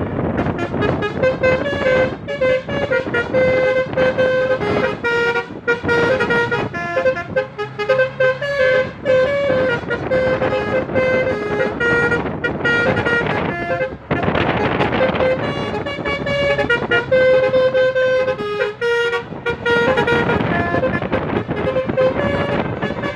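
Telolet basuri musical horn playing a tune of quick stepped notes over road and wind noise. Partway through, the tune pauses for a couple of seconds under the road noise, then starts again.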